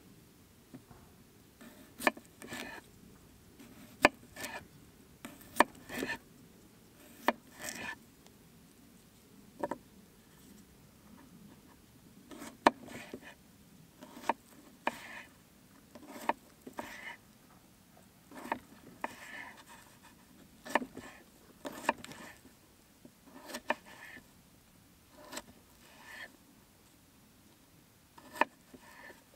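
Small kitchen knife cutting red potatoes into chunks on an end-grain wooden cutting board: sharp, irregular taps of the blade meeting the board, often in pairs and about once a second, with softer slicing and scraping sounds between.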